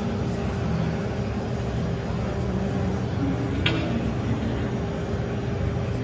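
CASE 580 EV electric backhoe loader digging, with the steady hum of the electric motor that drives its hydraulics, very quiet for a backhoe and set against the low din of an exhibition hall. There is one brief sharp knock about three and a half seconds in.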